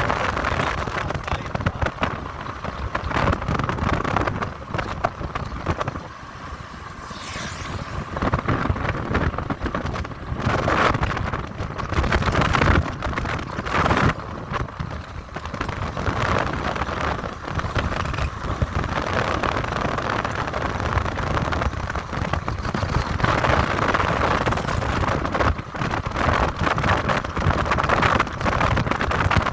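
A vehicle travelling along a road, with steady road and engine noise and wind buffeting the microphone.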